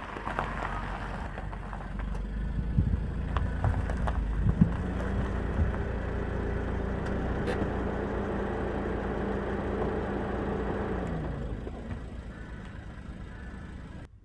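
Car driving at low speed, its engine drone holding a steady pitch and then dropping as the car slows a few seconds before the end. A few thumps about three to five seconds in.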